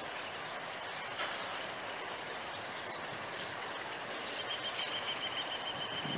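ALCO RSD-16 diesel locomotive and its train of grain hopper cars rolling slowly past, a steady noise of engine and wheels. A thin, high, wavering squeal joins about four seconds in.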